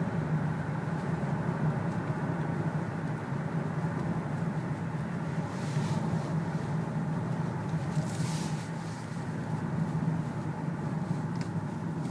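Cabin sound of a moving 2007 Lexus ES350 with its 3.5-litre V6 still cold: steady engine and road noise carrying the rattling knock of piston slap, a defect that is loudest for the first ten minutes after a cold start. Two brief rushes of noise come about six and eight seconds in.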